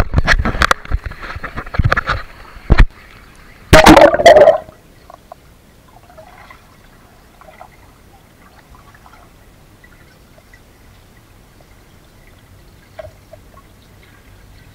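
Pool water splashing and knocking around a camera as it is plunged under, loud for the first four or five seconds. Then a faint, muffled underwater hush with a few small bubbling sounds.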